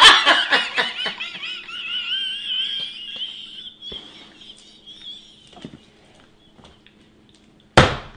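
Shrill, high-pitched laughter that thins into a wavering high squeal, fading out over the first five seconds or so. Near the end comes a single loud, short burst.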